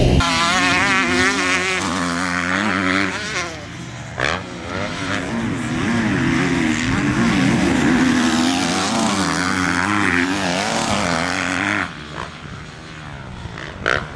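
Motocross bike engines revving up and down as they ride the track, the pitch rising and falling quickly with each throttle change; the sound drops away somewhat near the end.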